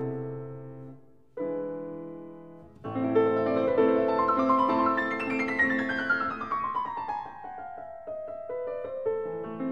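Background piano music: a chord dies away, fresh notes come in about a second and a half in and again near three seconds, then a run of notes descends steadily from about five to eight seconds.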